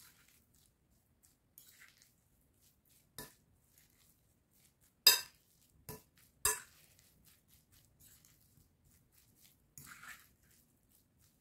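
Metal fork clinking against a glass bowl while shredded chicken with potato and carrot is tossed. There are four sharp clinks, the loudest about five seconds in, with soft scraping and rustling of the food before and after.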